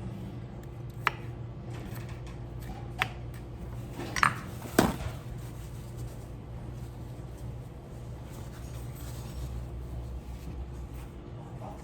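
Four sharp knocks and clinks of kitchenware over a steady low hum, the last two close together and loudest, a little before the middle.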